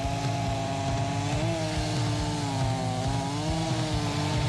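Chainsaw running at high revs under load, cutting the root flares off the base of a larch trunk; its pitch stays steady and rises slightly twice.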